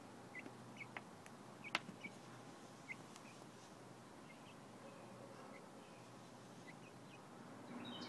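Faint, short bird chirps scattered throughout, with a few sharp clicks, the loudest just under two seconds in.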